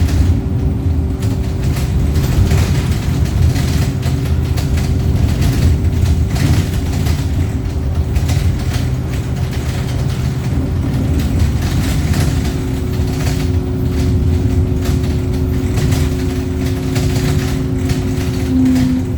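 Wright StreetLite single-deck bus running in service: a steady low engine and drivetrain rumble with a constant whine, and scattered rattles and clatters throughout. Near the end the whine shifts in pitch.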